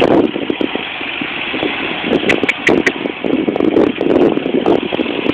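Pickup truck engine running under load as the wheels spin and churn in soft sand: the truck is stuck and trying to drive out. The sound rises and falls unevenly throughout.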